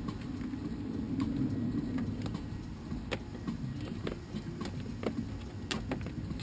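Scattered light metallic clicks and taps from hand work inside a car door, about ten spread unevenly, over a steady low rumble.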